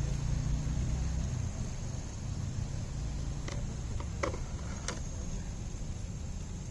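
1/10 scale RC rock crawler climbing a boulder: a low steady hum from its motor and drivetrain, with a few sharp clicks from about three and a half to five seconds in as the tyres and chassis catch on the rock.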